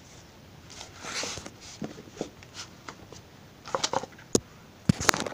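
Handling noise: a brief rustle about a second in, then a cluster of sharp clicks and knocks near the end, loudest just before the end.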